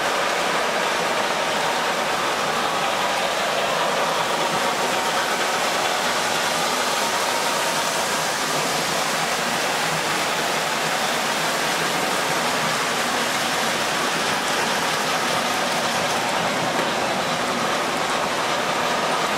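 O gauge three-rail model passenger train running along the track: a steady, even rush of wheels rolling on the rails, with a faint steady whine.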